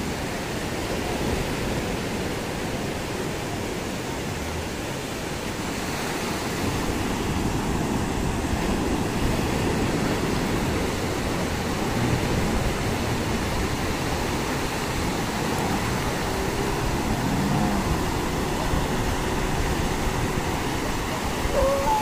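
Sea surf washing onto the beach, a steady rushing noise of breaking waves.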